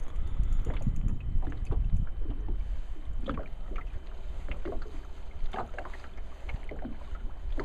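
Wind rumbling on the microphone and water lapping against the side of a small fishing boat, with scattered small knocks and splashes at the hull.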